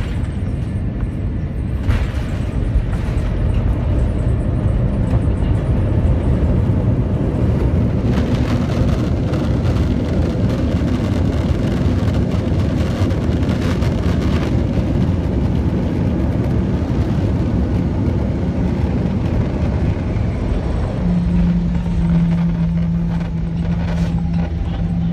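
Steady low rumble of an Airbus A330-200's jet engines and airframe, heard inside the cabin as the airliner taxis after landing. A steady low hum joins about three-quarters of the way through.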